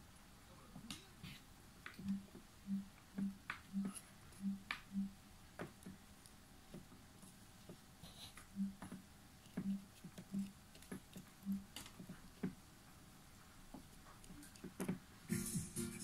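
Faint clicks and taps of fingers handling a small LED circuit board, with two runs of short low pips about half a second apart. Music comes in near the end.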